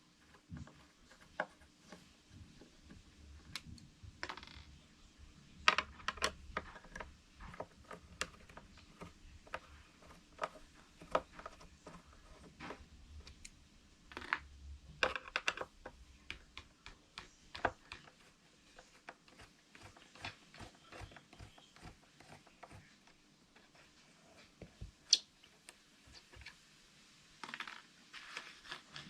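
A flathead screwdriver and hands prying open a small speaker enclosure, making irregular clicks, taps and scrapes, with sharper knocks about 6 s and 25 s in.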